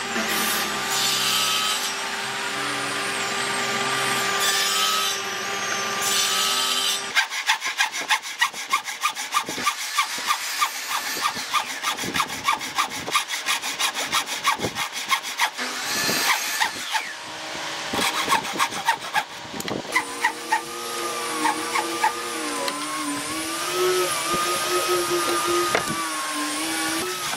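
Table saw running with a steady whine for about seven seconds, then a hand saw cutting pine with regular strokes, about two a second. Near the end a wavering hum sits under the sawing.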